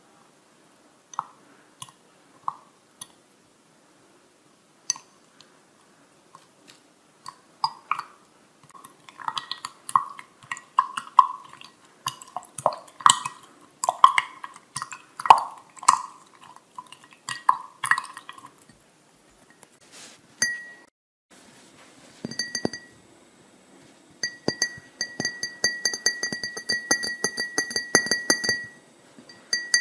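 Tall drinking glass of brewing tea being handled, with tea bags dunked in it: scattered taps and clinks against the glass at first, then a busy run of clinks with short ringing from about eight seconds in. Near the end the glass rings with a steady clear tone under a quick run of clinks.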